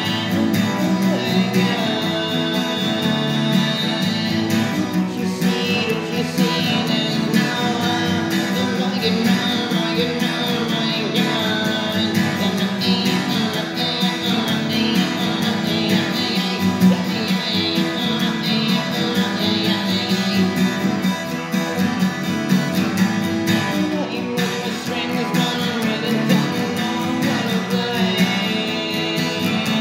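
Acoustic guitar strummed steadily, recorded without a professional microphone.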